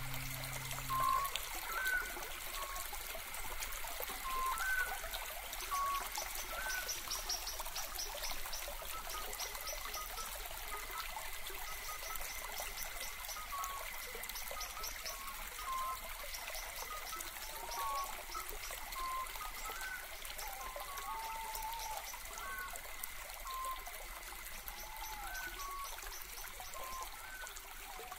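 Water trickling and babbling steadily like a small stream, with short bird chirps scattered throughout and a faint steady high tone.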